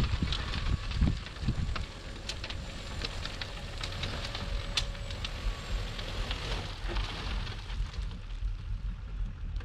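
An engine runs steadily with a low rumble, while many scattered sharp clicks and crackles sound over it.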